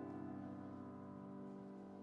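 Quiet chamber music: a held chord slowly dying away.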